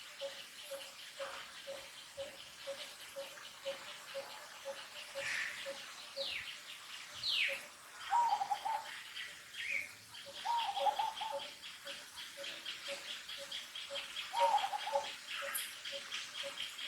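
Birds calling over a steady high insect trill: a repeated low note about twice a second, a few quick falling whistles, and three short wavering coos.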